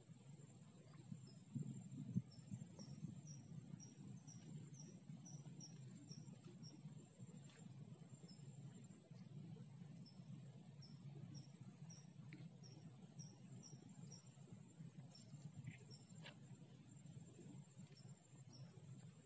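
Near silence with faint insect sounds: a steady high-pitched buzz, and runs of short high chirps repeating two or three times a second that come and go.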